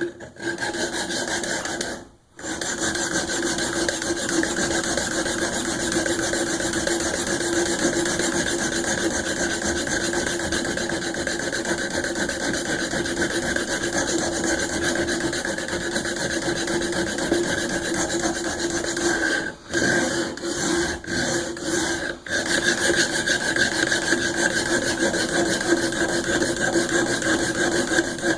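Steel knife blade (Cold Steel SRK, VG-1 steel) stroked over and over across a diamond plate of a Work Sharp Guided Sharpening System, a continuous rasping scrape that raises a burr along the edge. It stops briefly about two seconds in and several times around twenty seconds in.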